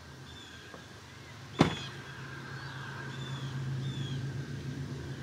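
A pickup truck's door slams shut once, about a second and a half in, the loudest sound. A low steady hum runs underneath and grows louder in the second half, and a bird chirps several times.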